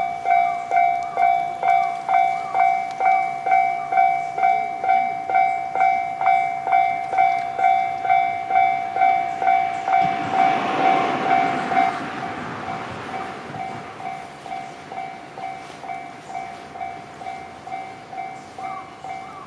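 Japanese level-crossing warning bell ringing its electronic two-tone 'kan-kan' about twice a second. About ten seconds in, a train passes, a swell of train noise lasting a couple of seconds, after which the bell sounds quieter.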